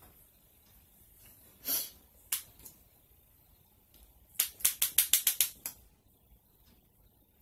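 Small makeup items being handled: a short scrape, a couple of light clicks, then a quick run of about eight sharp clicks just past the middle.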